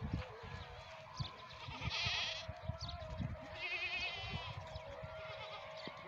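Young goat kids bleating, two short quavering bleats about two and four seconds in.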